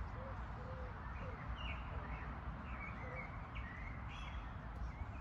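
Small birds chirping and singing in short, quick phrases over a steady low rumble.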